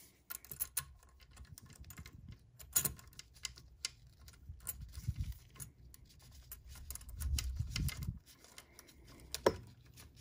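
Scattered small clicks and taps with some soft rubbing and dull bumps, from gloved hands fitting small brass screws into a Singer 500J sewing machine's stitch-selector indicator plate; a sharper click comes near the end.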